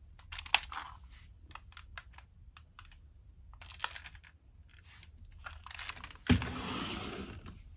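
Hard plastic parts of a DX Sentai robot toy clicking and clattering as they are handled and fitted together. Near the end comes a sudden thump, then about a second and a half of louder rushing noise that fades.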